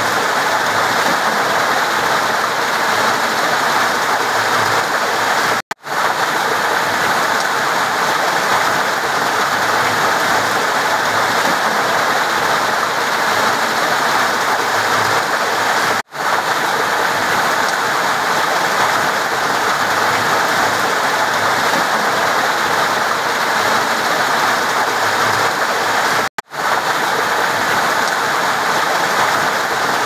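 River water rushing steadily, an even hiss of flowing water. It cuts out for an instant three times, about ten seconds apart.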